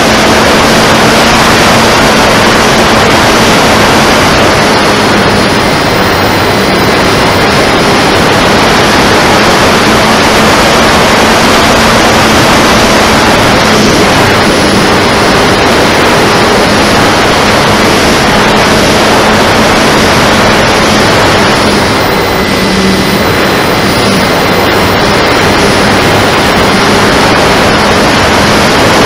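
An RC flying wing's 850kv brushless electric motor and 12x8 propeller running under power in flight, picked up by the onboard camera under loud, steady wind rush over the microphone, with a faint steady hum from the propeller.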